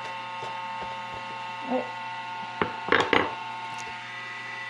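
Kitchen utensils knocking and clattering against a bowl while a meatball mixture is mixed: a single knock about two and a half seconds in, then a short clatter just after three seconds. A steady electrical hum runs underneath.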